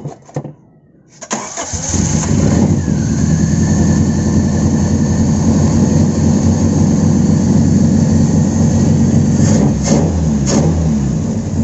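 Carbureted Toyota AE92 4A-FE four-cylinder engine cranking briefly about a second in and catching almost at once, then running steadily. A few sharp clicks come near the end. It now starts readily, though the mechanic says the combustion is still not right.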